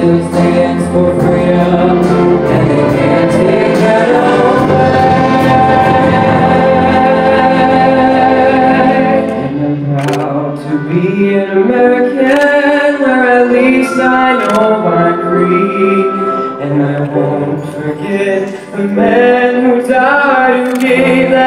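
A concert choir singing with accompaniment, full-voiced over a low bass. About ten seconds in it thins to a solo boy's voice at the microphone over lighter accompaniment, with fuller singing returning near the end.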